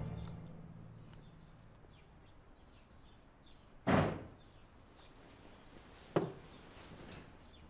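A room door thudding shut about four seconds in, then a second, sharper knock about two seconds later, with faint small clicks and rustles between.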